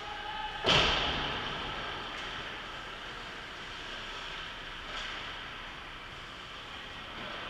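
A single loud bang close by, about a second in, that echoes and dies away slowly in the ice arena, over steady rink noise.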